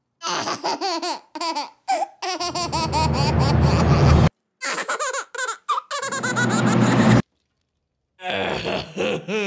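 A baby laughing and giggling in repeated bursts, with short breaks and about a second of silence some seven seconds in.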